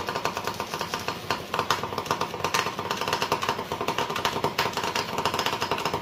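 Homemade vibration alarm motor running continuously: a small 5-volt DC motor spinning an off-centre counterweight of two lead balls in a 3D-printed holder. It gives a steady buzz with a fast, even rattle.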